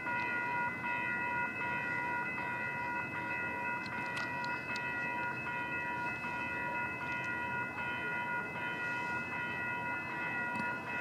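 A train approaching: a steady rumble of rail noise under a set of steady high tones that hold through the whole stretch.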